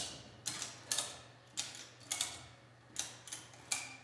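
Sharp metallic clicks, about two a second at an uneven pace, from hand tools worked at the front wheel and axle of a Model A Ford. A steady low hum runs underneath.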